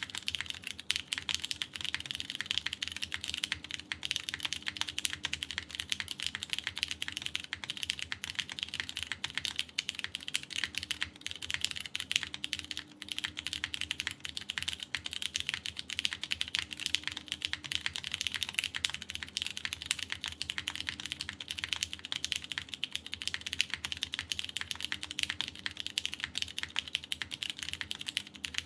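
Continuous, fast typing on a KBDfans Tofu TKL mechanical keyboard in its top-mount configuration, with lubed Cherry MX Purple tactile switches, a polycarbonate plate and GMK keycaps: a dense, steady stream of keystroke clacks.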